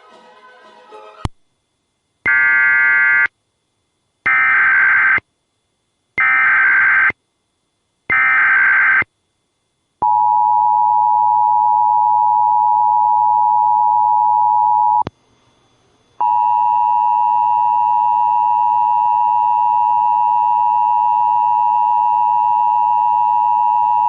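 Emergency Alert System tones: four one-second bursts of screeching digital header data about two seconds apart, then the steady two-tone attention signal. The attention signal breaks off with a click about fifteen seconds in and resumes a second later.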